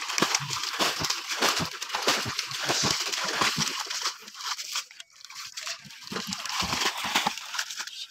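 Water splashing and pouring as a plastic bucket is scooped and emptied into shallow muddy water, with hands sloshing through it. It is busy for the first half, then thins out into scattered splashes.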